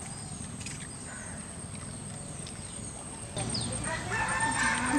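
Quiet outdoor background with faint bird chirps, then, from about three and a half seconds in, louder children's voices.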